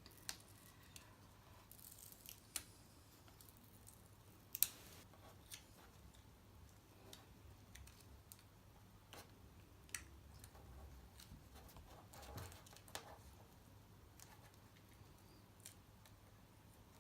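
Faint, scattered small clicks and ticks of hands working at a laptop screen's display cable, peeling back the tape over the connector. The sharpest click comes about four and a half seconds in.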